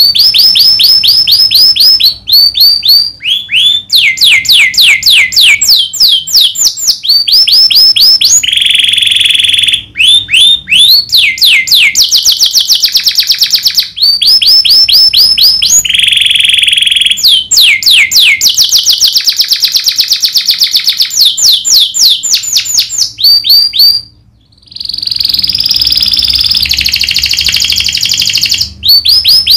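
Domestic canary singing loudly and continuously in sharp rolling trills: phrase after phrase of rapid repeated sweeping notes, with one short pause about three-quarters of the way through.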